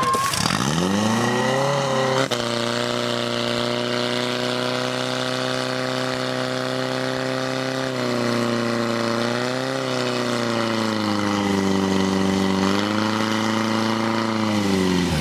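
Portable fire pump engine revving up from low to high revs within about two seconds and then running flat out while it pumps water out through the hoses to the jets. Its pitch sags briefly around the middle and again for a few seconds, then climbs back before dropping off near the end.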